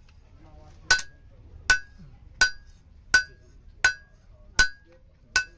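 Hand hammer striking a red-hot leaf-spring blade on an anvil: seven evenly paced ringing blows, about three every two seconds, starting about a second in.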